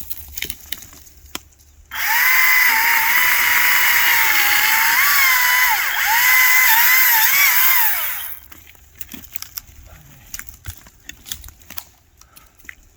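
Echo DCS-2500T 56-volt brushless battery chainsaw starts about two seconds in and runs with a high whine for about six seconds. Its pitch dips and recovers as the chain bites into the log, then it stops abruptly. Scattered cracks and snaps of wood and brush come before and after.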